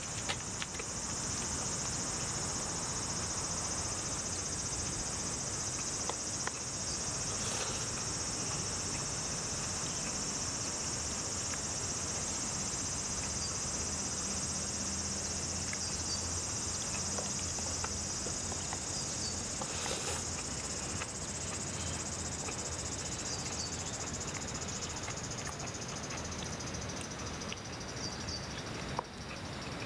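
A steady, high-pitched chorus of insects, fading away over the last few seconds, over a low steady hum, with a couple of faint clicks.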